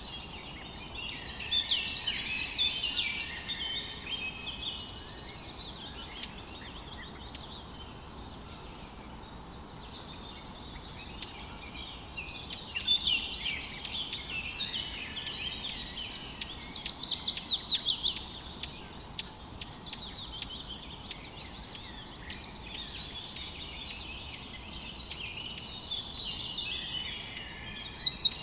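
Songbirds singing in scattered phrases of quick chirps and trills, with a lull of several seconds about a third of the way in. The loudest phrase is a rapid run of repeated falling notes about two-thirds of the way through. A steady faint hiss runs underneath.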